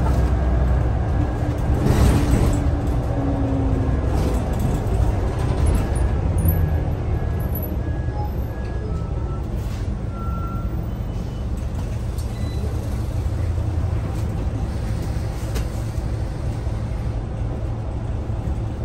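Interior drone of a Scania L94UB city bus's engine and drivetrain while riding, with a short hiss of air about two seconds in. The drone eases down over the first several seconds, then runs on steady and lower.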